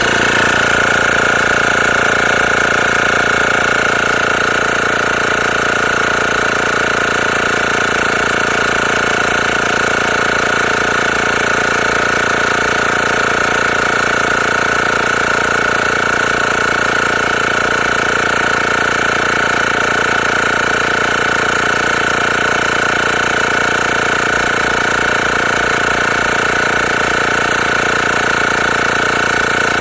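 Kensun AC/DC portable tire inflator's small piston compressor running steadily while pumping up a car tire, a loud mechanical rattle with a steady high whine.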